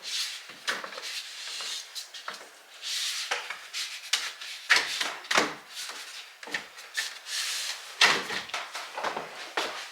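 Irregular knocks, taps and scraping as a door lite frame is pushed and worked into the cutout of an entry door.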